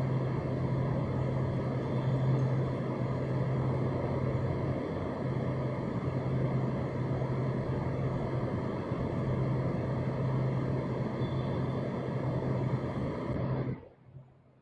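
Steady low mechanical drone with a strong hum and a rushing noise over it, typical of city machinery. It cuts off suddenly near the end.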